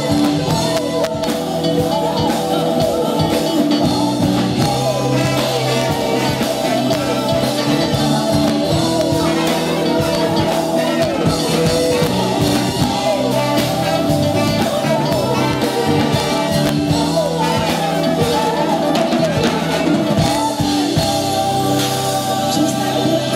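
Live funk-pop band playing, with a lead singer over a brass section of trombone, trumpet and saxophone and an electric guitar.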